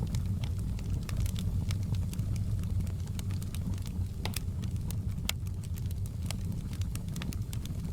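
Wood fire in a fireplace crackling, with irregular sharp pops over a steady low rumble. A couple of the pops are louder, about halfway through.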